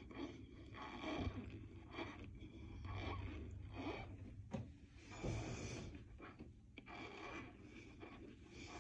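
Metal spoon working a layer of cornstarch on top of water in a glass, making faint, irregular soft scraping strokes, with one sharp click about halfway through.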